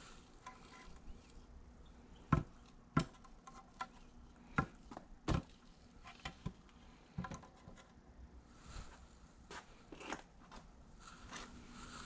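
Irregular knocks and taps from objects being handled and bumped, about one every second or so, with a brief busier clatter near the end.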